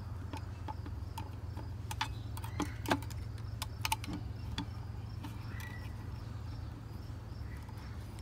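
Scattered light clicks and taps of an Allen key and small metal parts as the screws holding a Philips Hue Lucca wall light's housing are undone, over a steady low hum.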